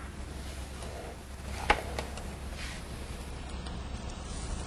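Quiet kitchen room tone with a steady low hum, broken by a single light click about a third of the way in and a couple of fainter ticks, as a knife starts on a cooked lobster on a metal tray.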